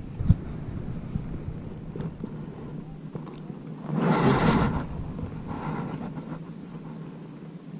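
Handling noise and rustling as a gloved hand moves among water hyacinth leaves near the camera: a short thump just after the start, a loud rustle about four seconds in and a fainter one near six seconds. A steady low rumble runs underneath.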